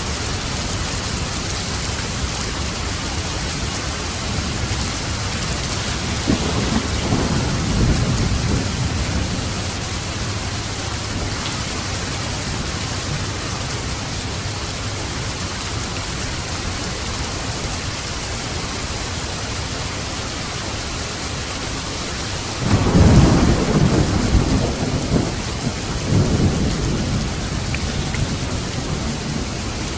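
Steady heavy rain with thunder rumbling twice, a lighter roll about a quarter of the way in and a louder, longer one past the two-thirds mark.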